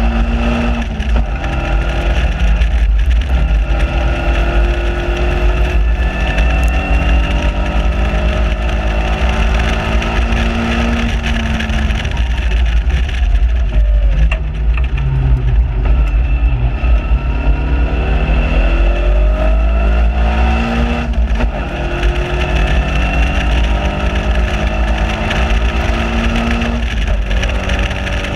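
Onboard sound of a 1.6-litre Caterham Seven Supersport's four-cylinder engine at full throttle on track, its pitch climbing through each gear and dropping at upshifts about a second in, around ten seconds, around twenty-one seconds and near the end. Around the middle the engine eases off for braking and then pulls up through the revs again, with wind rushing over the open cockpit.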